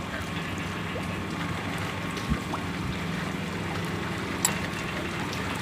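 River water lapping against a small boat's hull, with wind and a steady low hum underneath. Two short sharp clicks, about two seconds in and again near four and a half seconds.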